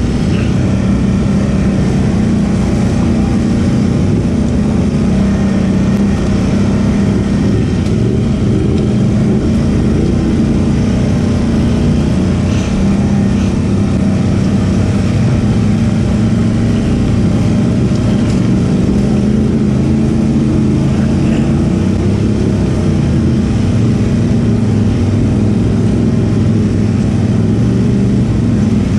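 ATV engine running steadily under throttle, its pitch drifting up and down a little, with a few faint knocks along the way.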